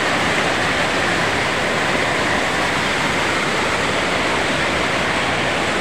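River water rushing steadily, a loud even noise with no breaks.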